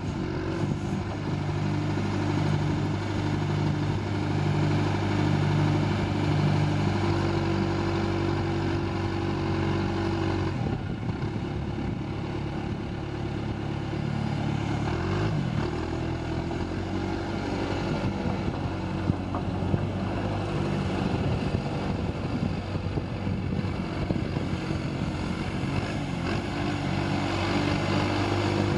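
John Deere 410D loader backhoe's diesel engine running steadily, its note shifting about ten seconds in and briefly changing pitch around fifteen seconds.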